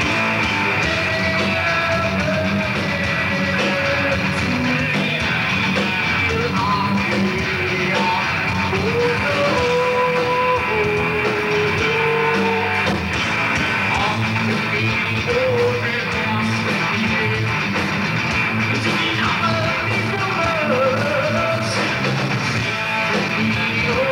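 A live heavy rock band playing: distorted electric guitars, bass guitar and a drum kit, loud and dense, with a wavering, gliding lead line on top.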